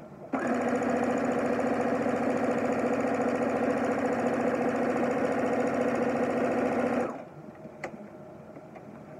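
Electric sewing machine stitching at a steady speed through layered cotton fabric, starting suddenly about half a second in and stopping after about seven seconds, followed by a light click.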